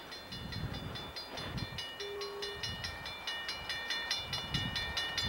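A bell rings rapidly and evenly, growing clearer about two seconds in, over the low rumble of a passenger train running away down the track.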